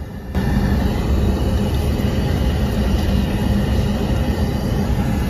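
Water running from an airliner lavatory's push-button tap onto hands and into the stainless-steel basin, starting about a third of a second in. Under it is the steady drone of the aircraft cabin.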